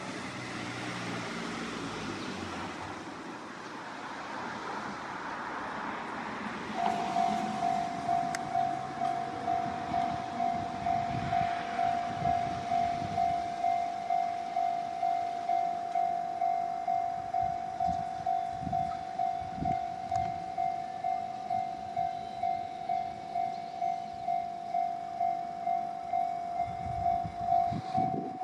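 Japanese railway level-crossing warning bell starting about seven seconds in: an electronic ding repeating steadily at an even rate. Before it starts, a rushing noise.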